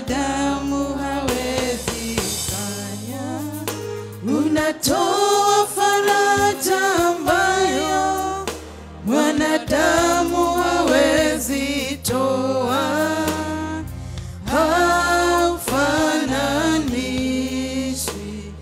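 Gospel worship music: a woman singing through a microphone over steady bass notes and a drum beat.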